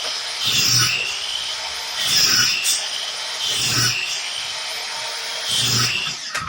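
Hart 7-1/4-inch compound miter saw running and chopping through 3/4-inch plywood strips four times in quick succession, about one cut every second and a half, the motor's whine climbing back in pitch after each cut. Near the end the motor is switched off with a click and begins to wind down.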